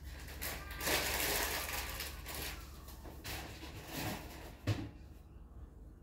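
Cockatoo giving a loud, harsh screech about a second in, lasting over a second, followed by quieter raspy calls and a short thump near the end.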